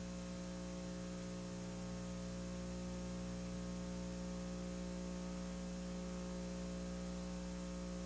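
Steady electrical mains hum, several low tones held at once over a faint hiss.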